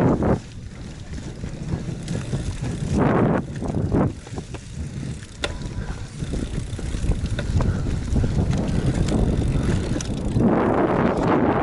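GT Avalanche mountain bike ridden over a dirt trail: tyres rumbling over the ground and the bike rattling with small clicks, with louder rushes of wind noise on the microphone about three seconds in and again near the end.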